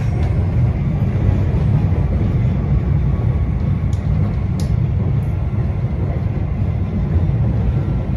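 MBTA Red Line subway car running at speed, heard from inside the car: a steady, loud low rumble of wheels on rail, with a couple of brief high clicks about halfway through.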